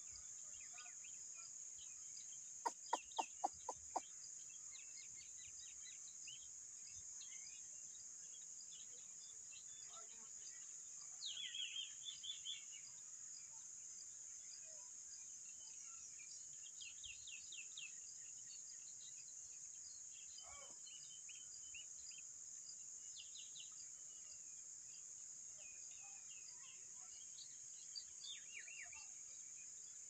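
Faint outdoor field ambience: a steady high insect drone with scattered short bird calls and a louder flurry of calls about eleven seconds in. A quick run of six sharp clicks about three seconds in is the loudest thing heard.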